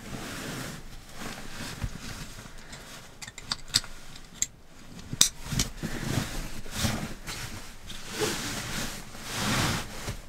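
Synthetic sleeping bag being stuffed into its nylon stuff sack: irregular rustling and swishing of the fabric as it is pushed down, with a few sharp clicks midway and a longer swish near the end as the drawstring is pulled.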